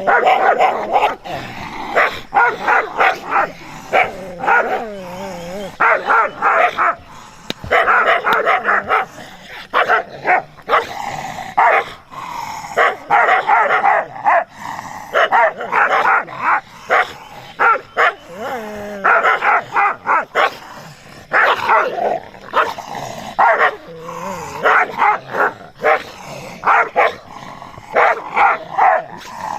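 A dog barking again and again in quick runs of barks, with short pauses between the runs.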